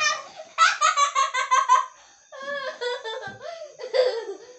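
A boy laughing hard in a quick run of high-pitched ha-ha's, then softer laughing after a short pause about halfway through.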